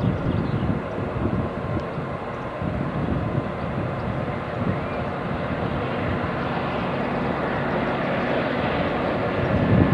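Class 66 diesel locomotive's two-stroke EMD V12 engine running under load as it hauls a train of loaded hoppers up the gradient: a steady, deep drone that grows a little louder near the end as the train draws closer.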